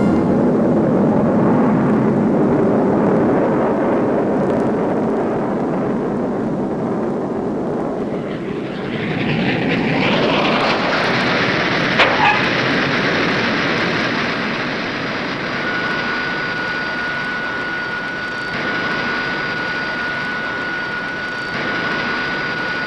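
Aircraft engine noise, a loud, steady, dense rush of sound. A single sharp click comes about halfway, and a thin steady whine joins about two-thirds of the way through.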